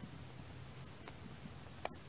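A few faint, short clicks from hands working a baitcasting reel and rod, over a quiet, steady low hum and hiss.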